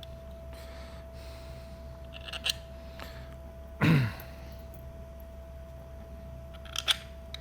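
Small clicks and knocks of plastic fittings being handled and lined up, with one louder short knock about four seconds in and a pair of sharp clicks near the end, over a steady faint hum.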